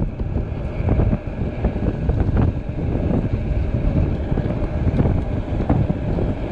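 Wind buffeting the microphone of a handlebar-mounted camera on an electric scooter at about 30 mph, a heavy steady rumble with road noise underneath. The scooter eases off speed during it.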